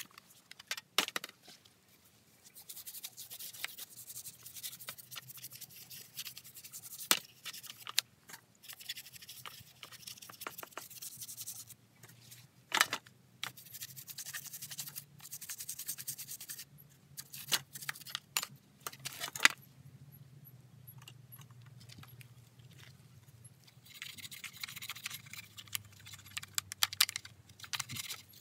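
A stiff-bristled brush scrubbing caked dirt off a STIHL MS170C chainsaw's plastic housing and bar. It comes in stretches of scratchy scrubbing, broken by a few sharp clicks of the brush knocking against the saw.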